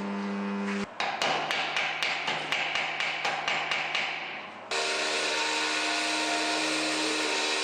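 Metalworking tool sounds in abrupt edited cuts: a power tool's motor running steadily, then a rapid series of sharp metallic knocks for about four seconds, then a motor running steadily again.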